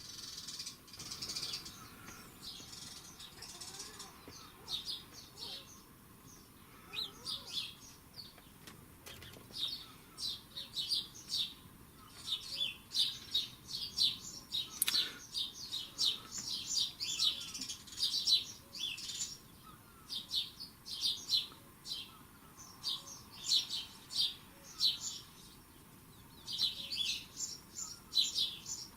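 Small birds twittering in quick, high chirps that come in clusters, which the owner takes for birds coming and going from a nest between the roof tiles and the felting. One sharp click sounds about halfway through.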